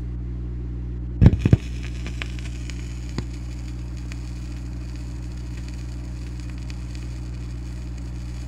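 Gap between cuts on a dub plate playback: steady mains hum with faint hiss and crackle. A cluster of loud clicks comes a little over a second in, and a single smaller click near three seconds.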